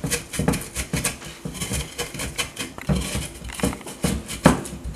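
Pestle grinding and pounding spices, ginger and garlic in a bowl by hand: rapid repeated strokes, several a second.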